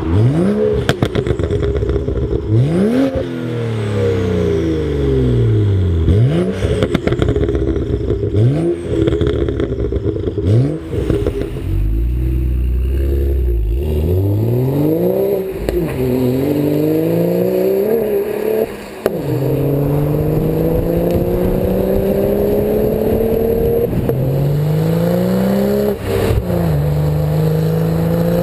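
BMW M235i's turbocharged 3.0-litre straight-six through a Scorpion cat-back exhaust with 90 mm Daytona tailpipes, revving and pulling hard. The exhaust note climbs in pitch and then drops away again, about ten times over.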